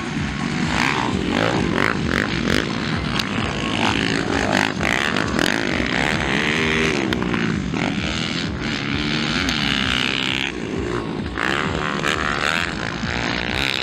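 Motocross dirt bike engines revving hard on the track, the pitch repeatedly rising and falling as the riders open and close the throttle through jumps and corners.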